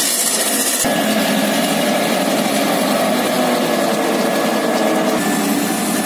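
Diesel engine of a TDT-55 tracked logging skidder running steadily, with an abrupt shift in the sound about a second in.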